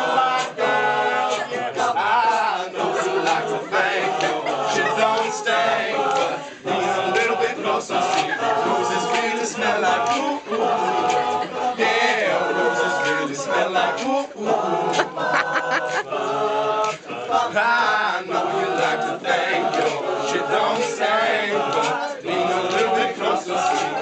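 Male a cappella group singing together in harmony, without recognisable lyrics, while sharp vocal-percussion clicks keep a beat.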